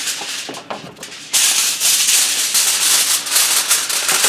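Aluminium foil crinkling and rustling as it is spread over a baking pan and pressed down around the edges. It comes back loud and sudden about a second in after a brief quieter moment.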